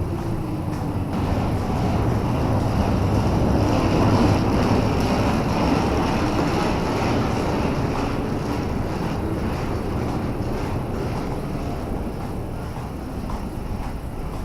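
A passing electric train: a rumble that swells over the first few seconds, then slowly fades.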